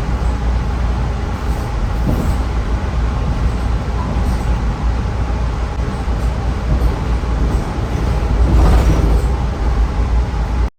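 Steady low rumble of an Amtrak passenger train, swelling slightly near the end.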